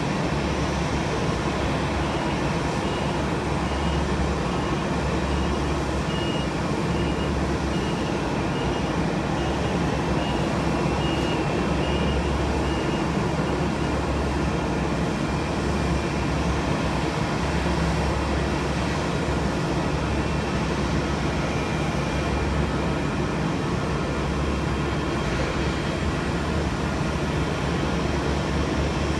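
Jet airliner engines running at a steady, unchanging level: a continuous low rumble with a hiss on top, neither spooling up nor down.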